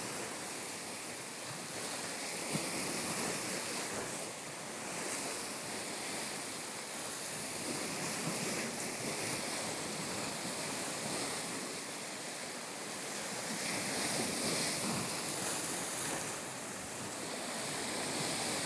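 Sea surf washing on a rocky shore, a steady hiss of water that swells and eases gently, with wind blowing across the microphone.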